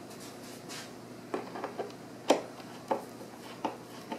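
A few light, irregular clicks and taps of a number 3 screwdriver being handled and set into the screws that hold the seat base to the chair's plywood seat shell, with a soft rubbing in the first second; the loudest click comes a little over two seconds in.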